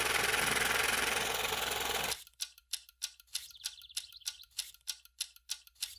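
A steady hiss that cuts off suddenly about two seconds in, followed by light, rapid ticking at about four ticks a second.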